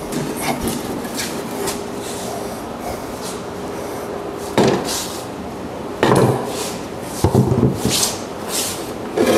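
A cedar folding table being unfolded and set down on a concrete floor: wood rubbing and scraping, then several sharp wooden knocks and clacks from about halfway through as the legs swing open and the table lands.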